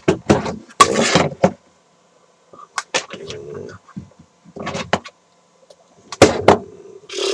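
A person's short, breathy vocal sounds with no clear words, mixed with a few sharp clicks.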